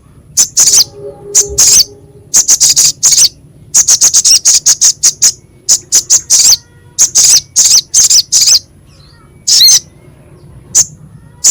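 Sogok ontong (little spiderhunter) giving its harsh, sharp, high-pitched chip calls, in quick bursts and rapid runs of several calls a second with short pauses between.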